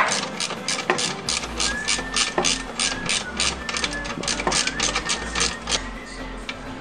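Socket ratchet with an extension clicking steadily, about four clicks a second, as a 14 mm bolt on the rear camber arm is worked loose.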